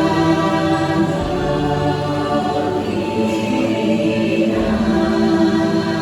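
Choir-like singing in the Na'vi language over soft music: a slow chant of long held notes.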